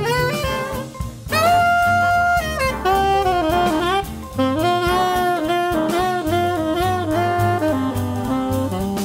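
Big-band swing jazz with a tenor saxophone soloing over rhythm section and drums, phrasing in short runs with one long held note near the start.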